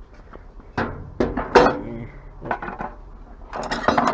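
Loose scrap metal parts knocking and clinking together as they are handled. There are separate knocks with a short ring, then a busier clatter near the end.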